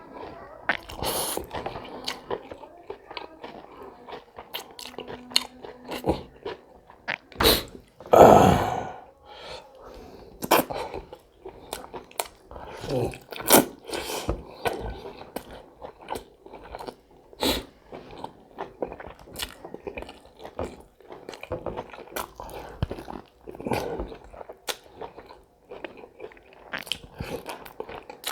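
A person eating close to the microphone: chewing, with crunchy bites, wet clicks and smacks coming irregularly. There is a louder, longer sound about eight seconds in.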